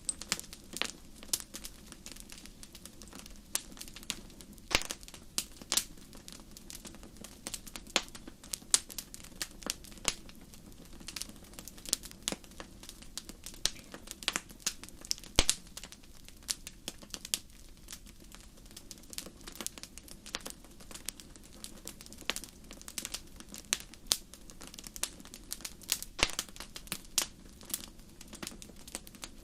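Wood fire burning in a fireplace, crackling with frequent irregular sharp pops over a steady low hiss of the flames.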